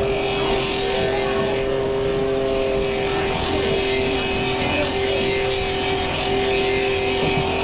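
Clog-making machine running with a steady whine as its cutter carves a block of wood into the shape of a wooden shoe.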